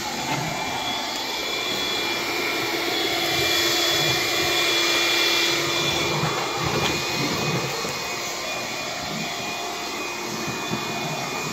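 Bissell PowerGlide cordless stick vacuum running on low power with its brush roll off: a steady motor whine over the rush of suction air, swelling a little louder for a few seconds in the middle.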